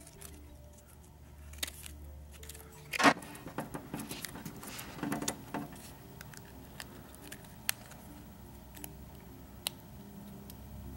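Scissors snipping pieces off a Plastigauge strip in its paper sleeve: a few sharp cuts, the loudest about three seconds in and a quick cluster a little later, followed by a few scattered light ticks as the small pieces are handled.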